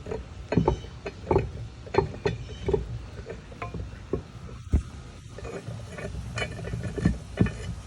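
Metal parts of a wall-mount toilet carrier being handled: a string of irregular clinks and knocks as bolts and fittings are tried together and threaded.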